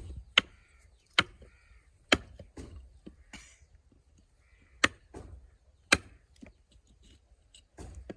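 A series of sharp knocks or strikes: five loud ones at irregular intervals, with a few fainter taps between them.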